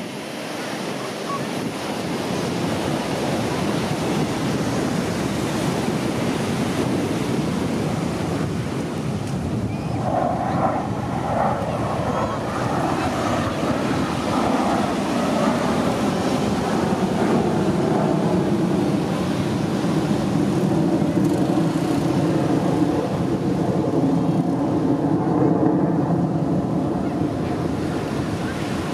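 A steady rushing roar of jet engines, with engine tones coming through from about ten seconds in as the jets draw nearer. Wind noise on the microphone is mixed in.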